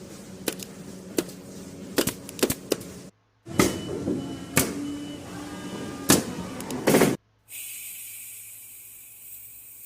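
Short sound-effect samples played one after another. First come sharp clicks and knocks over a low hum. After a brief gap come heavier knocks and thuds, and about seven seconds in a steady high hiss begins.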